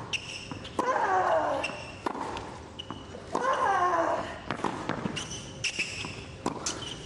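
Tennis rally on a hard court: racquets striking the ball back and forth about once a second, with a player's long, falling-pitch grunt on two of the shots, about a second in and again at three and a half seconds.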